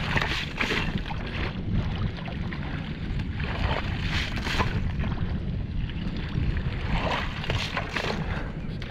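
A long-handled mesh scoop dredging broken ice and slush out of water in a hole cut in lake ice: a few irregular scrapes and sloshes of ice chunks, over a steady rumble of wind on the microphone.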